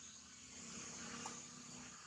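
Faint outdoor ambience: a steady high-pitched drone of insects, with a low hum underneath.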